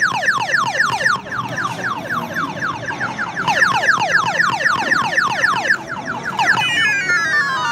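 Claw machine's electronic sound effect: a fast run of short falling-pitch chirps, about five a second. About 6.5 s in it changes to a slower falling glide of several tones together, as the claw starts to drop.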